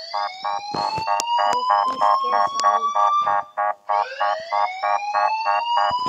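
Fanmade EAS alarm tone: a siren that glides slowly upward in pitch, starting over about every four seconds, layered over a rapid pulsing beep.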